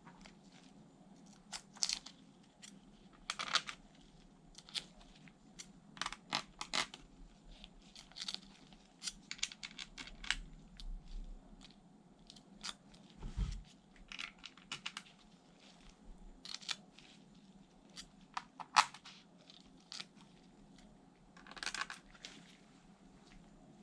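Hands working on a laptop's parts during an SSD installation: irregular small clicks, taps and short scrapes of plastic and metal, with one low thud about halfway through.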